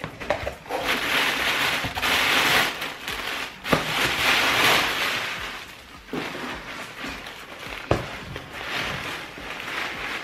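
Tissue paper rustling and crinkling as it is pulled out of a cardboard shipping box, in three long spells, with two sharp knocks of cardboard about four and eight seconds in.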